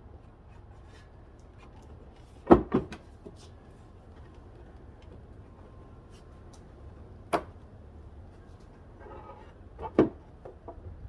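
A few sharp knocks and clicks from the hard plastic of a car's tail-light assembly being handled: a close pair about two and a half seconds in, a single knock near the middle and another near the end, over a low steady hum.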